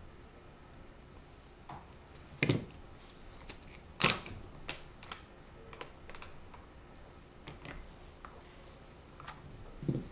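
Tegu magnetic wooden blocks clicking and knocking together and onto the table as pieces are picked up and placed: irregular wooden clacks, two louder ones in the first half and a duller knock near the end.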